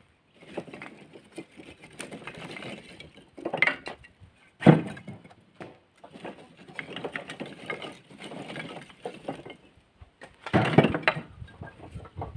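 Split firewood being thrown by hand from a cart into a storage box: irregular knocks and clatter of logs landing on other logs, the loudest knock about four and a half seconds in and another burst of clatter near the end.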